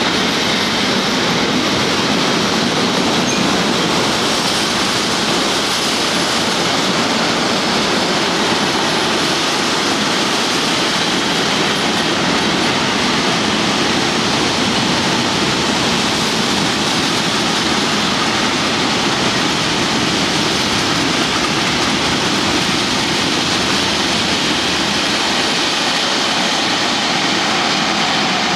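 Freight train wagons rolling past on the rails, a steady, unbroken noise of wheels on track from a long train of covered and open freight wagons.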